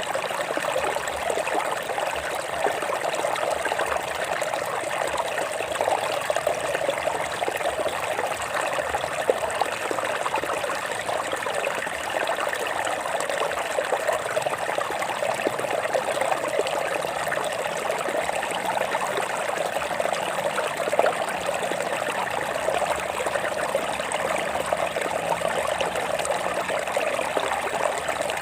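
Stream water flowing and trickling over rocks: a steady bubbling rush.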